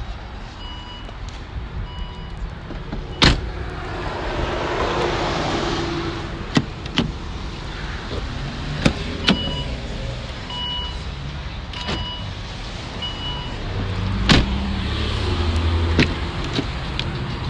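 A car's electronic warning chime beeping at a steady pitch about once a second over a low steady rumble, with several sharp knocks and clicks.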